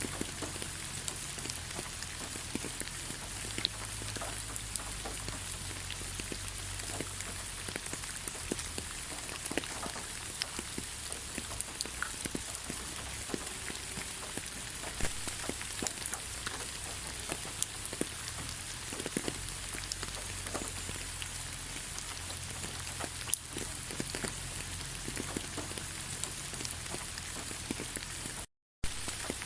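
Steady rain falling, with many separate drops striking as small clicks over an even hiss. It cuts out briefly to silence near the end.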